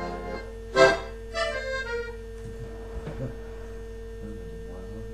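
Button accordion: a held chord breaks off, a loud short chord sounds about a second in, and after a few fading notes a single quiet note is held on.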